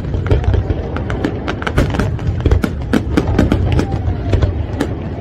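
Fireworks display: shells bursting in repeated sharp bangs and crackles over a continuous low rumble, with music playing alongside.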